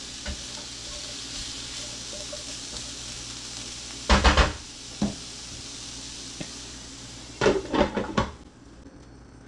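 Broccoli sizzling in a nonstick skillet with the burner just turned off, as a spatula stirs and scrapes it. There is a loud clatter of spatula and pan about four seconds in, and more clatter near the end as the spatula is set down and the glass lid goes on, after which the sizzle goes quieter.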